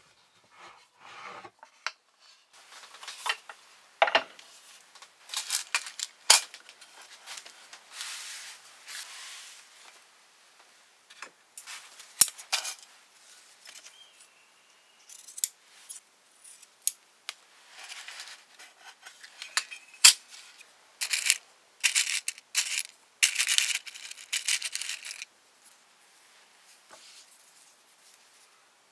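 Hand-work at a wooden bookbinding sewing frame: irregular wooden knocks and clacks as the frame and small items are set down on its board, with sliding and rustling between them. A few sharp clicks stand out, and a denser run of handling noise comes a little past the middle.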